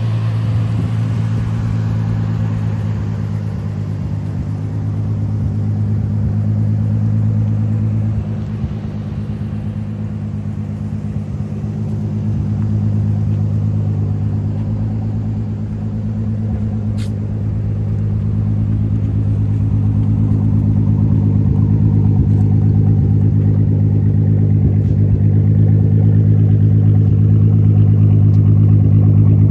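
Turbocharged VW VR6 engine and exhaust running at a steady, fairly low engine speed with a deep, even drone. The level dips slightly about a quarter of the way in, then swells gradually louder over the last third.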